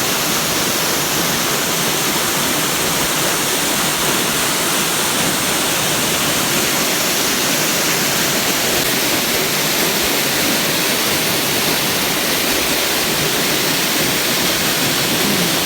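Waterfall: a steady, loud rush of falling water, even throughout.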